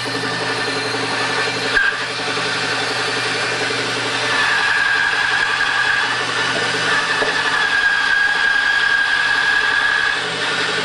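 Band saw running and cutting an arc in lumber: a steady motor hum with a high blade whine that gets stronger about four seconds in. A short click near the two-second mark.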